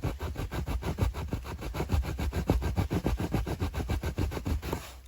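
Wood being scraped or rubbed back and forth by hand in fast, even strokes, about eight a second.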